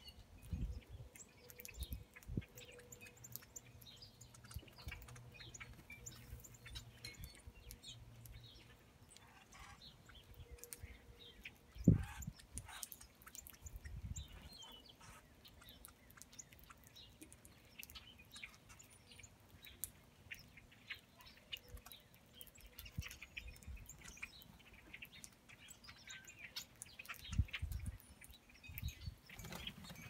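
A mixed flock of songbirds at a seed patch, with cardinals and red-winged blackbirds among them, giving many short chirps and call notes scattered throughout. A few low thumps break in, the loudest about twelve seconds in.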